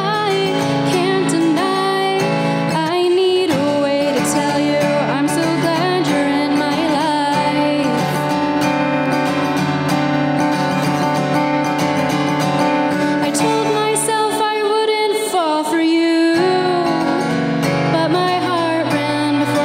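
A woman singing a song while strumming her own acoustic guitar, solo.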